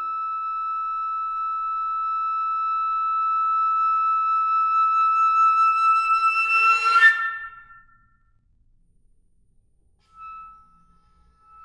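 A flute holding one long, high, steady note that slowly swells louder, then breaks into a breathy, airy flurry with a short step up in pitch about seven seconds in and cuts off. A near-silent pause follows, broken by one short soft note of the same pitch.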